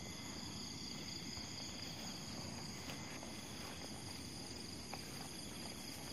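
Night insects such as crickets chirring in a steady, even high drone, over low rustling from moving through grass, with a couple of faint clicks.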